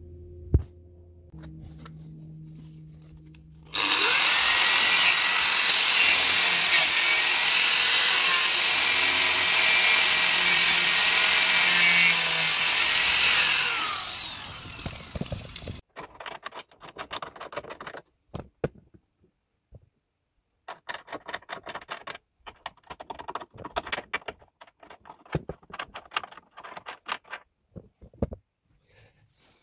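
Power tool running for about ten seconds on a rusted bolt in a car's rear frame, a loud hiss with a high whine that falls away as the tool winds down. Scattered light clicks and scrapes follow.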